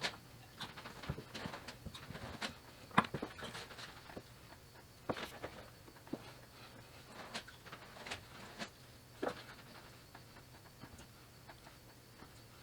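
Scattered light clicks and taps of small hand work on wiring, with tools and wire being picked up and set down at irregular times, the loudest tap about three seconds in, over a faint steady hum.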